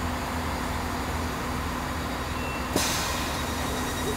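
Diesel multiple unit standing at a platform with its doors open, its engine running with a steady low hum. About three seconds in, a sudden hiss of air starts and carries on.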